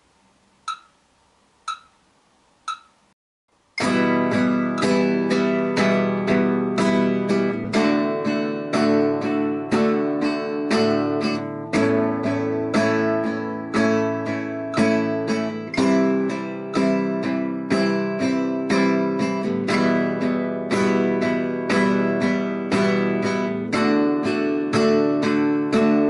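Four short count-in clicks about a second apart, then a nylon-string classical guitar strummed in a steady rhythm from about four seconds in.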